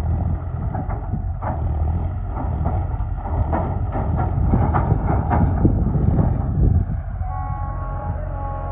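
John Deere 5105 tractor's three-cylinder diesel engine running under load as the driver pumps the clutch, jerking a tipped-up trolley forward to shake its manure load out. A steady pitched tone joins near the end.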